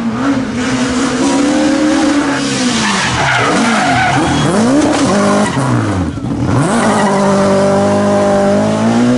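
BMW Compact F2/14 rally car's engine at high revs, dropping and rising rapidly several times as the driver brakes and downshifts through a tight bend, with tyres skidding. It then climbs steadily in pitch as the car accelerates away.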